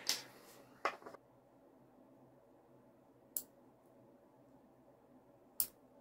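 Small metal parts of a Volkswagen door lock barrel (the coil spring, paddle and barrel) clicking and tapping as they are handled and fitted together by hand. There are a couple of soft clicks about a second in, then two sharp single clicks a little over two seconds apart.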